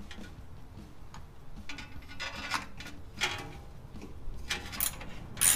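Scattered metallic clicks and scrapes from fitting the motorcycle's chrome exhaust pipe and its mounting bolts by hand, more of them near the end.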